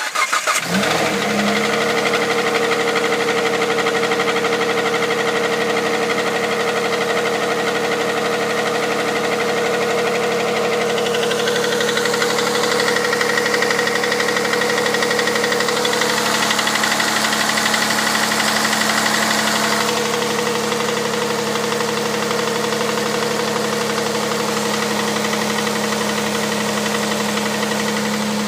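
Hyundai Santa Fe's 2.7-litre G6EA V6 starting from cold and catching right away, then idling steadily with a knock. The idle note shifts a little about twelve and again about twenty seconds in.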